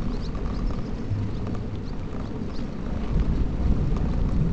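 A bicycle rolling along a rough road, heard from a camera on the handlebars: a steady low rumble of wind and tyre noise on the microphone, with scattered small clicks and rattles from the bike. The rumble grows a little louder about three seconds in.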